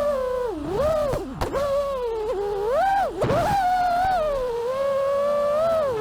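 FPV freestyle quadcopter's Mr. Steele V5 1750kv brushless motors whining. The pitch keeps rising and falling, swooping up and back down about every second as the throttle changes.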